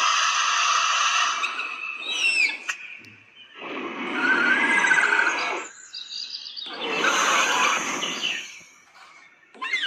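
Creature sound effects: three rasping, noisy bursts, each one to two seconds long, with short gliding chirps and whistles between them.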